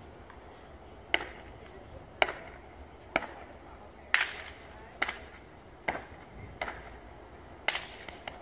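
Step dancer's body percussion: sharp stomps and hand claps landing about once a second with uneven spacing, some louder than others.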